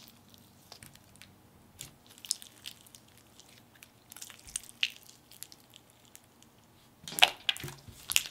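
Sticky, glittery slime being stretched, squeezed and pressed between the hands, making small wet clicks, crackles and squelches, with a louder run of squishes near the end.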